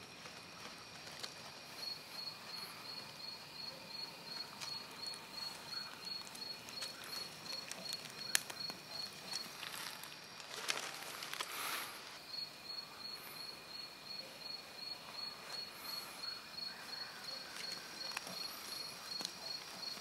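Night insect chorus: one insect chirping steadily about three times a second over continuous high trilling from others. Scattered faint ticks and rustles sit beneath it, with a short louder rustle about ten seconds in, when the chirping stops for a couple of seconds.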